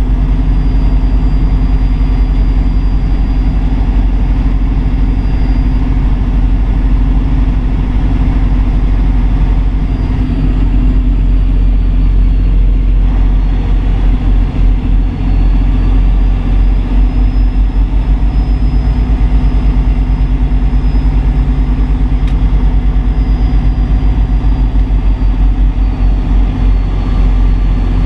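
Kenworth W900 semi truck's diesel engine running steadily, with a low throb that starts to pulse unevenly about halfway through.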